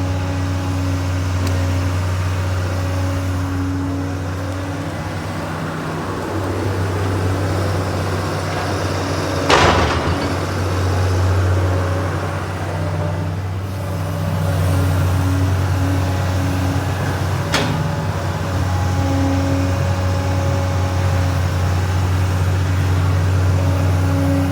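Caterpillar 315 excavator's diesel engine running steadily, with a sharp knock about ten seconds in and a shorter click near seventeen and a half seconds.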